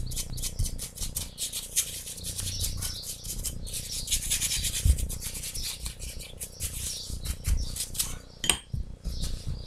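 Paintbrush scrubbing and dabbing watered-down paint onto a small painted figure: a quick, continuous run of scratchy rubbing strokes. A sharp knock comes near the end.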